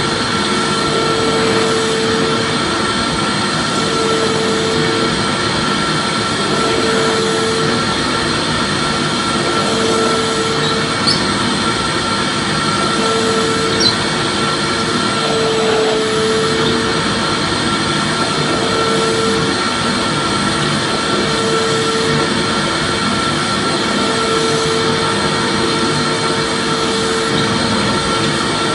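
Vacuum cleaner running steadily: a continuous rushing hum with steady high whining tones. A lower hum comes and goes every two to three seconds, and there are two faint ticks midway.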